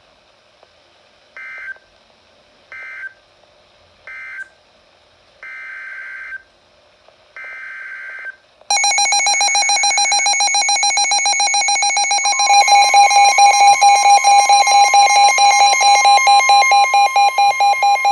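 Emergency Alert System digital data bursts, five short screeching electronic bursts (three short, then two longer), followed about nine seconds in by a loud, rapidly pulsing electronic alert tone. A second steady high tone joins a few seconds later, in the manner of the weather radio warning alarm tone that heralds a new warning.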